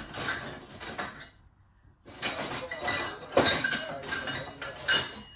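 Rummaging through a kitchen drawer for a teaspoon: metal cutlery clattering and clinking, with the drawer sliding, in two spells with a short pause between, the second longer.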